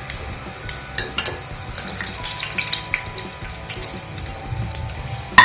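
Sabudana vadas frying in hot oil in a kadhai: a steady sizzle with crackles, and scattered clicks as a wire-mesh skimmer scoops them out against the pan. There is a loud metallic clank at the very end.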